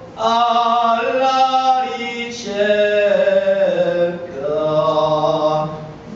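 A solo male voice singing a devotional bhajan in a slow, chant-like style, drawing out long held notes, with a short pause for breath near the end.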